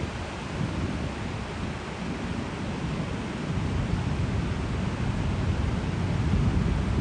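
Wind rumbling on the microphone over the steady wash of ocean surf, swelling slightly near the end.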